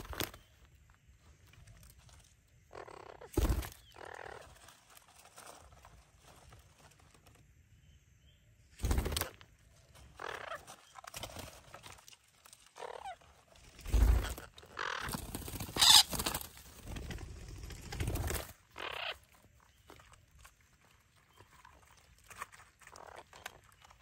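Several loud, separate knocks, with harsh bird calls and noisy scuffling between them.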